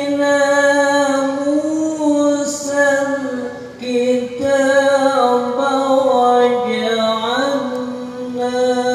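A man reciting the Quran in the melodic, sung style of a qari, amplified through a microphone. He holds long, ornamented notes that bend and waver in pitch, with a short break for breath about four seconds in.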